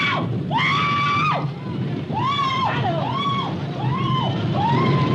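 Several people screaming and crying out in a run of high-pitched wails, one after another and sometimes overlapping, over a steady low rumbling noise.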